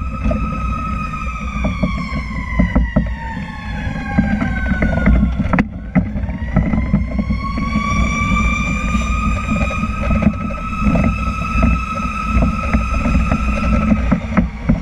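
Fire truck siren wailing: the tone winds slowly down over about five seconds, then winds back up and holds high, over the steady low rumble of the tiller ladder truck rolling through traffic. A single knock sounds about halfway through.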